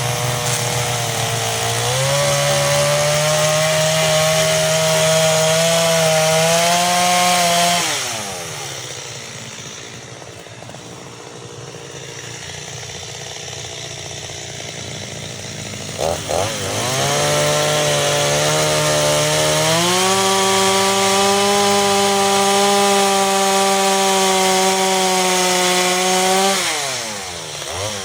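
Stihl MS 230 two-stroke chainsaw run at full throttle while cutting wood, in two long cuts of several seconds each. Between them the engine drops back to idle for about eight seconds.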